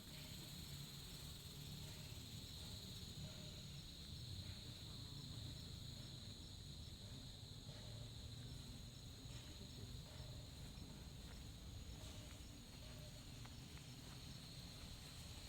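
Forest insects chirring steadily in a high-pitched chorus, over a faint low rumble.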